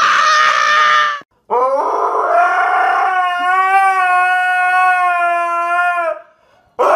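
A husky howling: one long howl that rises at the start and then holds steady for about four and a half seconds before cutting off. A short, loud, high-pitched squeal comes before it in the first second, and another loud pitched sound starts near the end.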